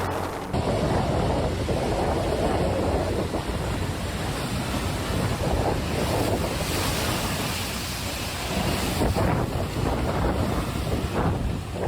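Storm wind buffeting the microphone in a continuous rushing noise, with a rumble that rises and falls.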